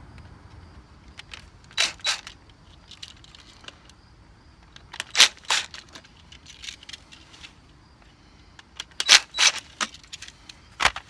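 Sharp metallic clicks and rattles in three short clusters as an old GFCI receptacle is worked out of its electrical box and handled.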